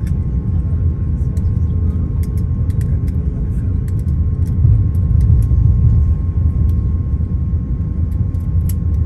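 Cabin sound of an Airbus A350-900 taxiing: a steady low rumble from its Rolls-Royce Trent XWB engines at taxi power and the rolling landing gear, with a faint steady hum and scattered light ticks and rattles.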